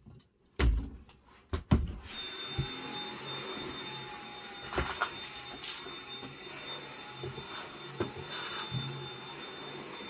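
A few loud knocks, then at about two seconds a stick vacuum cleaner switches on and runs steadily with a high whine while it is pushed over carpet, with a couple more knocks along the way.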